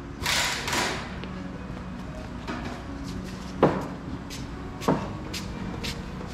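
A short hiss at the start, then two heavy thuds about a second apart near the middle, with light clicks around them: the Mazda RX-8's front end being pushed down so its newly fitted coilover springs settle after the lift is lowered.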